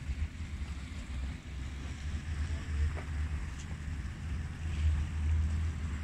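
Wind buffeting the microphone: a low, uneven rumble that swells and eases, over a faint hiss of open water.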